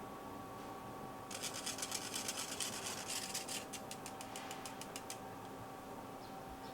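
Rapid scratchy strokes of a kitchen utensil working in a bowl or sieve, about five or six a second, starting about a second in and stopping about four seconds later.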